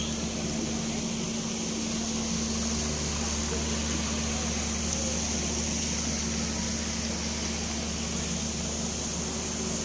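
A steady low mechanical hum with a constant high hiss above it, unchanging throughout.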